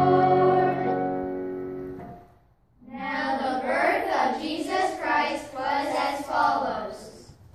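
Children's choir holding a final chord that fades away about two seconds in; after a short pause, the children's voices come in together for a brief phrase of a few seconds.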